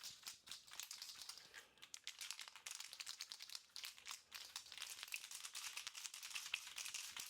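Freshly activated 2K two-part clear coat aerosol can being shaken, its mixing ball rattling in quick, uneven strokes, faint with brief pauses.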